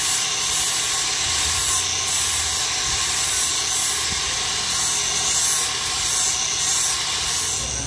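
Angle grinder with an abrasive disc grinding a steel sprocket: a steady, loud hissing rasp of disc on metal over the motor's whine, which stops near the end.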